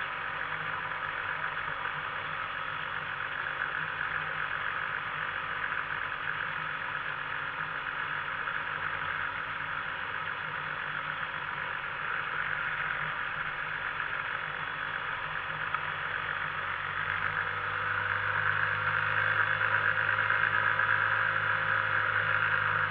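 Microlight trike's two-stroke Rotax engine idling steadily while parked, picking up and getting louder with a slight rise in pitch about two-thirds of the way through.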